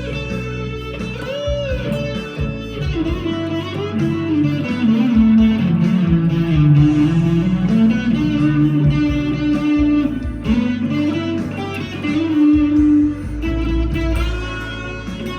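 PRS SE 245 electric guitar with overdrive playing a lead line in B minor, with held notes and string bends, over a backing track with bass and drums.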